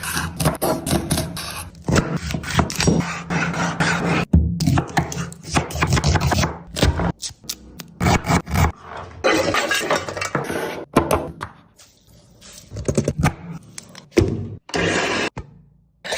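Kitchen cooking sounds: utensils scraping and knocking against pots and pans in a quick run of sharp taps and scrapes, over low background music that fades out about halfway through.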